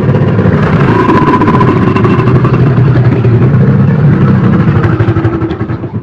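Crocodile growling: one long, deep, rough growl that cuts off suddenly near the end.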